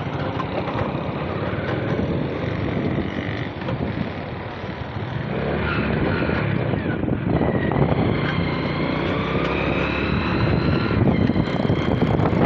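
Motorcycle heard from the pillion seat while riding: the engine running under road and wind noise, growing louder about five seconds in.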